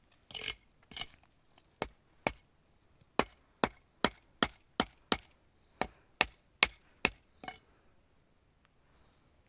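A tool striking wood, about fifteen sharp blows in quick, uneven succession, roughly two or three a second. The first one or two blows are longer and heavier, and the blows stop a little before the end.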